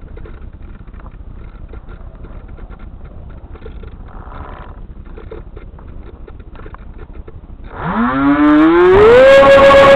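Faint rustling with scattered light clicks, then near the end a small motor spools up: a whine rising quickly in pitch that settles into a loud, steady high whine.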